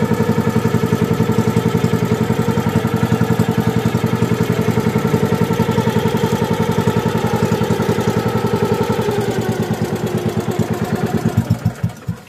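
Small engine of a motorized outrigger pumpboat running steadily, then slowing near the end and cutting off just before the boat drifts.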